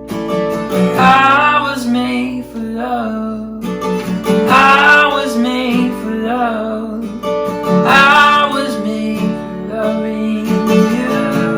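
Worship music: a strummed acoustic guitar holding chords under a singer's voice, which comes in three long phrases about three and a half seconds apart.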